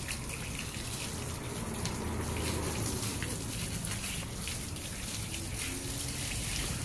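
Water from a garden hose spraying onto a wet dog's fur and splashing onto concrete, a steady hiss.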